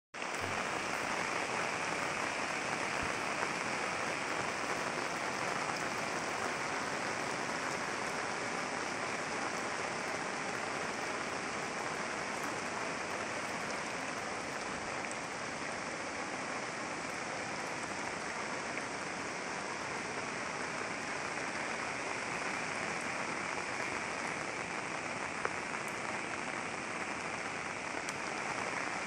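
Heavy monsoon rain pouring steadily: a dense, even hiss that holds without a break.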